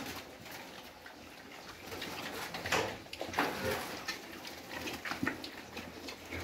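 Young pigs grunting and snuffling as they root in the dirt, with a few short louder calls, the strongest about three and five seconds in.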